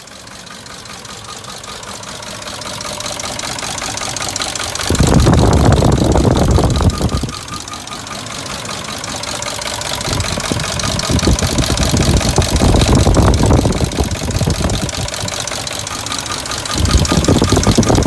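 2003 Dodge Durango's 4.7-litre V8 engine running with a rattling noise and a fast, even ticking. It grows louder over the first few seconds, with loud stretches about five seconds in and again near the end.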